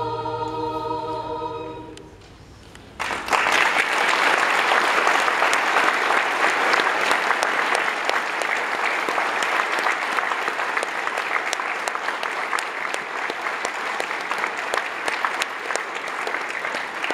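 A held sung chord, like a choir's closing chord, fades out about two seconds in. About a second later an audience breaks into steady applause, full of fast hand claps.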